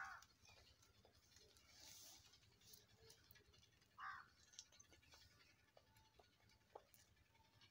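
Near silence, with a few faint short sounds of a baby sucking and chewing on a small piece of food held to her mouth.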